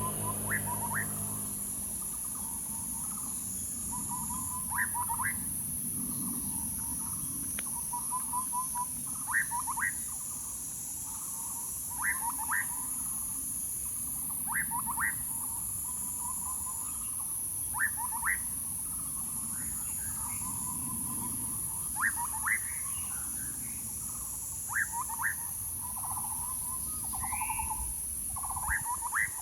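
A bird calling over and over, about every three seconds: a short low trill followed by two quick rising notes. A steady high-pitched drone runs underneath.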